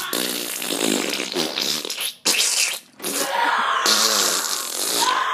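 Comic fart noises: three long rasping ones with short breaks between them, the last the longest.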